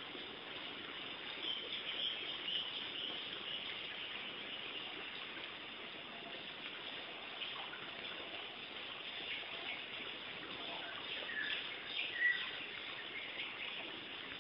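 Steady background hiss with a few short, high chirps, the loudest about twelve seconds in.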